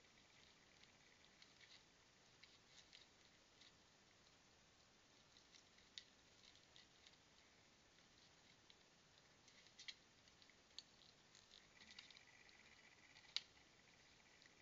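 Near silence with faint, scattered clicks and scratches as a raccoon clings to a tree-mounted tube bird feeder, its claws on bark and feeder; one sharper click about 13 seconds in.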